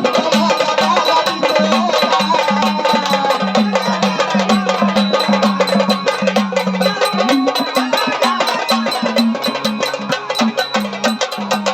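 Live Indian devotional folk music: fast, steady hand-drum and wood-block-like percussion driving a rhythm, with a melody line and a pulsing low note underneath.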